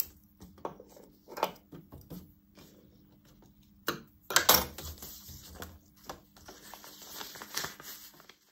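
Scissors snipping and the stiff waterproof fabric of a cut-up Wickelfisch swim bag being handled, heard as a series of separate snips and crinkly rustles, the loudest about four and a half seconds in. A faint steady hum runs underneath.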